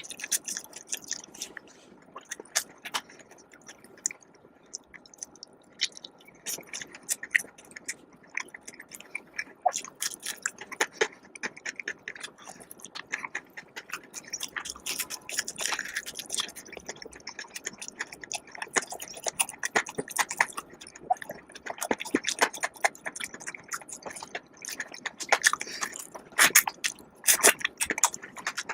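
A person chewing and biting food close to the microphone: irregular wet smacks and crisp crackles, denser near the end.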